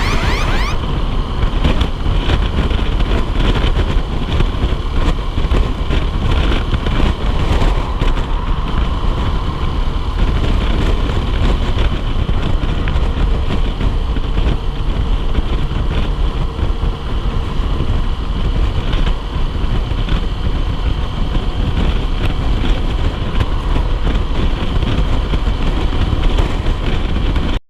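Honda CBF125R motorcycle running on the road, its engine heard under heavy, steady wind rumble on the microphone. The sound cuts off suddenly at the end.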